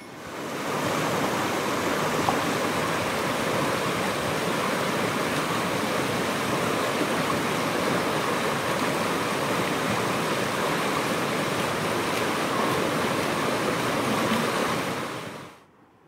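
Shallow mountain stream rushing over rocks: a steady, even rush of water that fades in over the first second and fades out about a second before the end.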